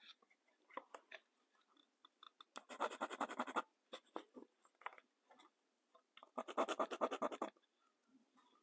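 Pencil scratching on wood in two bursts of quick repeated strokes, about a third of the way in and again near the end, with a few light ticks and taps between them: centre lines being marked on walnut handle blanks.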